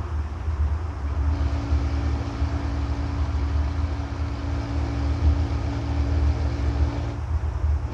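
Ford F550 drivetrain at highway speed: a steady low rumble with a steady hum over it that comes in about a second in and drops away near the end. This is the noise that a rebuild of the Dana S130 differential, with new gears and bearings, did not cure.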